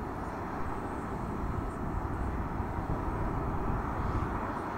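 Boeing 747-400 freighter's four General Electric CF6 turbofan engines running at taxi thrust, a steady low rumble.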